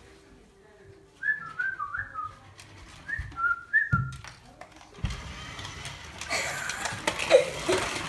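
Short, high whistling notes that slide down in pitch, in two quick runs between about one and four seconds in. A thump comes near four seconds, then a rising clatter from about five seconds as the dog scrambles after a remote-control car across a hardwood floor.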